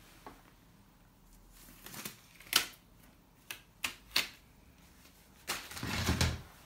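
A series of short, sharp taps and clicks from hands handling objects on a canvas lying on a wooden floor. Near the end comes about a second of louder rustling and shuffling with a low thud, as the person moves back.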